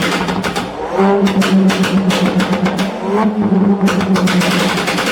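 Car engine revving hard, held at high revs, with a rapid string of exhaust pops and crackles. The revs climb about a second in and again around three seconds in.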